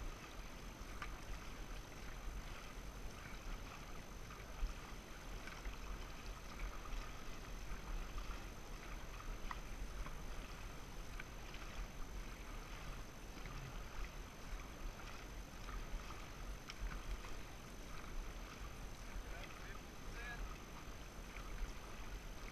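Dragon boat under way: paddles dipping and water splashing and lapping along the hull in a steady, irregular crackle, over a low rumble.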